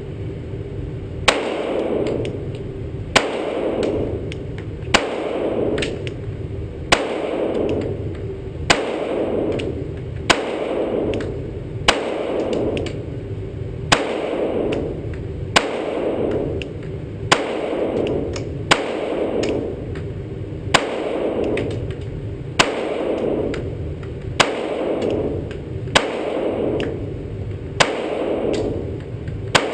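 Glock 17C 9mm pistol fired in slow, steady single shots, about seventeen of them, one every couple of seconds. Each sharp shot rings on in the echo of the indoor range.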